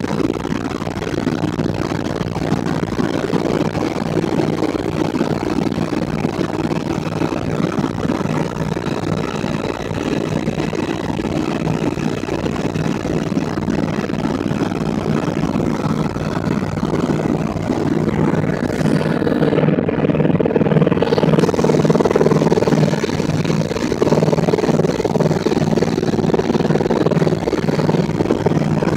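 Helicopter in flight heard from inside the cabin: a steady, loud drone of rotor and engine with a fast, even beat from the rotor blades.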